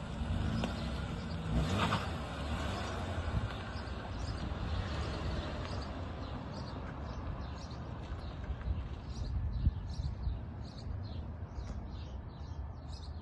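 An SUV driving slowly away across a parking lot, its engine and tyre noise fading into a low rumble. Small birds chirp repeatedly through the second half.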